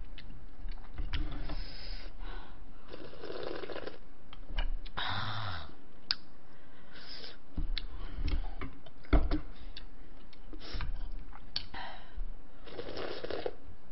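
Eating sounds: a wooden spoon clicking and scraping against a black bowl of soft tofu stew, one knock about nine seconds in louder than the rest, with short bursts of chewing and slurping mouth noise between the clicks.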